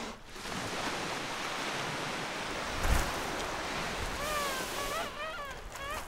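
Surf washing on a sandy beach, with a wave surging in about three seconds in. From about four seconds on, a run of short, high calls bends downward in pitch several times over the wash.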